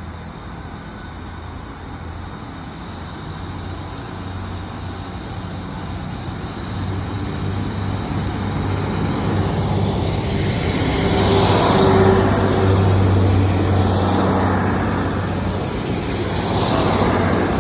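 Class 150 diesel multiple unit's underfloor diesel engines running as the train pulls out and passes, a steady low drone that grows louder, loudest about twelve seconds in, with a second swell near the end.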